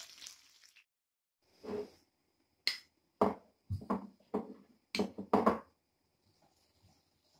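Frying sizzle that cuts off within the first second. Then a metal spoon knocks and scrapes against a small pan as butter is scooped into it: about nine short, irregular knocks over some four seconds.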